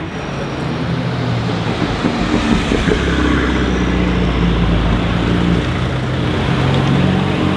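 Mercedes-AMG GT Black Series's twin-turbo V8 running at low revs, a steady low engine note that shifts in pitch a couple of times.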